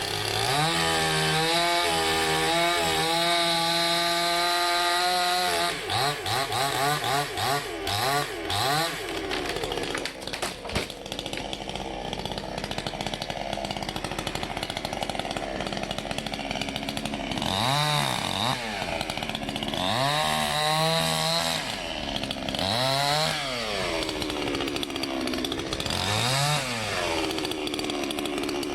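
Salem Master two-stroke gas chainsaw running at high speed, then revved up and down again and again, its engine pitch rising and falling in swells about every second and a half in the second half.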